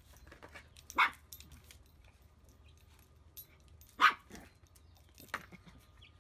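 Small dog barking sharply in single barks, two loud ones about a second in and about four seconds in and a softer one near the end, warning a larger dog off its bowl.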